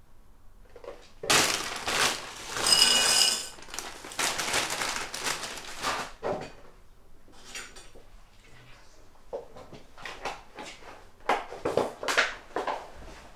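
Kitchen crockery clatter: a rattling pour into a ceramic bowl, with ringing as the bowl is struck, then more rattling and a few sharp clinks and knocks on the worktop near the end.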